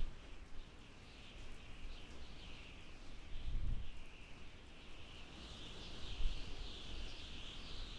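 Outdoor ambience: a continuous, wavering high-pitched chorus of bird chirping, with brief low rumbles on the microphone about three and a half seconds in and again around six seconds in.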